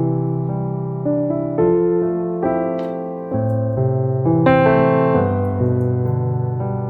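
Soft background piano music: slow chords over held bass notes, each chord struck and left to fade, with a brighter, louder chord about four and a half seconds in.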